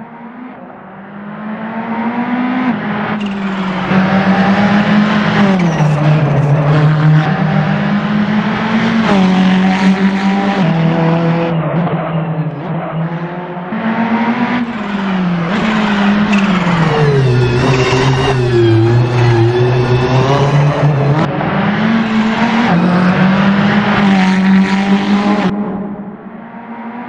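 Ferrari 488 GT3's twin-turbo V8 racing uphill under hard acceleration. The engine note climbs and drops again and again with gear changes and lifts through the corners, fading briefly at the start and near the end.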